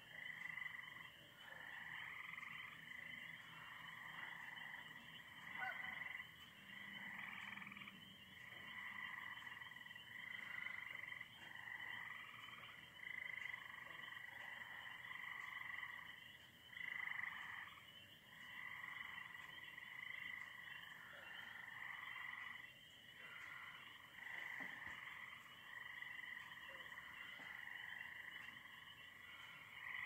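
Chorus of frogs, many overlapping calls swelling and fading every second or two over a steady high-pitched note.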